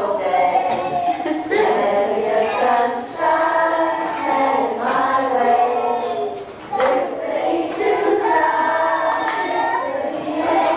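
A group of preschool children with hearing loss singing a song together, heard as a video's soundtrack played back over the speakers of a lecture room.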